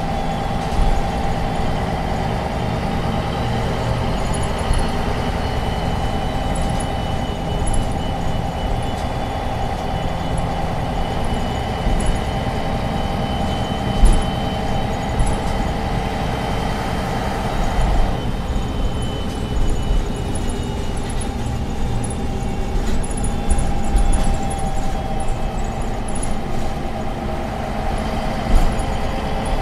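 MAN NG 263 articulated city bus running, its diesel engine and drivetrain giving a steady drone with a whine that changes abruptly about two-thirds of the way through. A few short knocks or rattles stand out above the drone.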